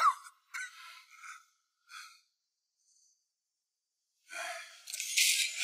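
A person's faint breathing, a few short breaths, then about two seconds of near silence. A harsh hissing noise then sets in and builds, loudest near the end.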